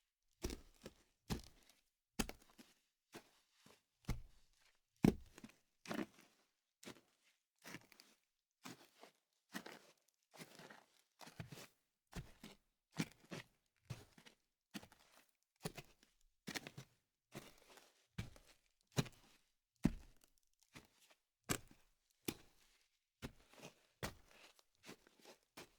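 Footsteps walking at a moderate, even pace, a little over one step a second, each step a short sharp impact.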